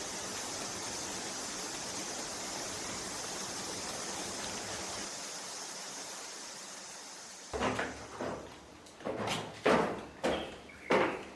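A steady high hiss for about seven and a half seconds, then it cuts to a series of sharp knocks and bangs, roughly two a second, like a door or wooden panel being knocked or slammed.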